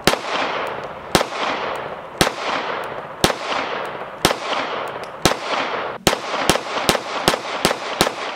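Girsan MC9 Disruptor 9mm striker-fired pistol firing, with shots about a second apart and then, about six seconds in, a faster string of shots. Each shot trails a long echo.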